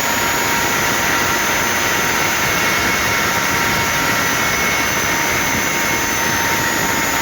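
Steady, loud engine-like roar with a few thin high whining tones held throughout, unchanging in level.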